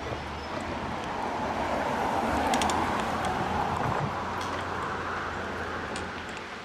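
Car engine and road noise, a steady low rumble with a rushing sound that swells to a peak in the middle and eases off toward the end.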